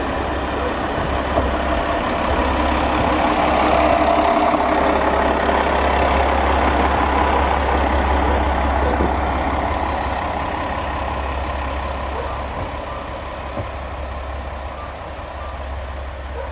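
Diesel railcar passing slowly at close range with engine and wheels running. The noise is loudest about four seconds in, then eases as the train moves away.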